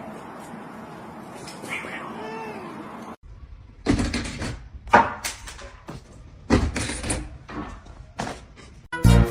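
A cat meowing, first one faint call over a steady hiss, then a run of sharp sudden sounds, knocks and short cries, over several seconds; music comes in near the end.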